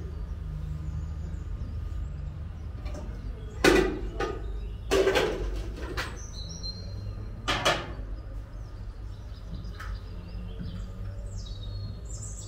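Metal cookware clattering as a frying pan is handled and lifted from a stack of pans: three clanks, the loudest about four seconds in and a longer scrape-like one about a second later, over a steady low hum.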